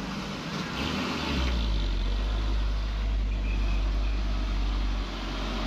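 Heavy fuel tanker truck's diesel engine labouring up a steep grade under load, a deep rumble that swells about a second in and eases off near the end, while the truck pours black smoke from the strain.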